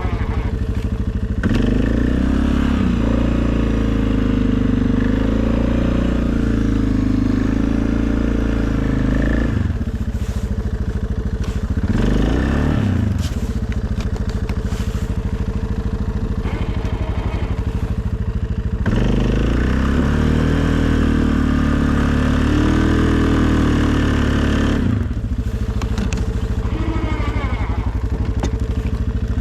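A 2020 Suzuki KingQuad ATV's single-cylinder engine running while plowing snow. It rises in pitch and stays louder for two stretches of several seconds, easing off between them, with a short rev up and down around the middle.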